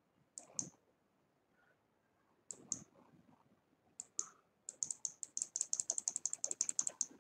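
Clicking and typing on a computer: three pairs of sharp clicks a second or so apart, then a quick, even run of keystroke clicks, about eight a second, for the last two or so seconds.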